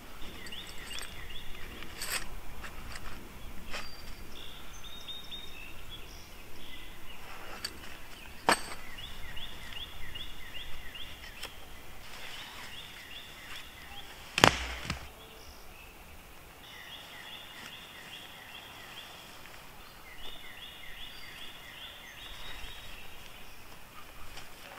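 A songbird singing short trilled phrases over and over, each a second or two long and coming every few seconds, with a few sharp snaps, the loudest about halfway through.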